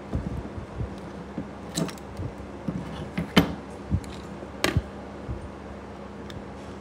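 Irregular clicks and knocks of amplifier circuit boards and a metal heatsink being handled and set down on a wooden workbench, the sharpest about halfway through and again near two-thirds of the way, over a steady low hum.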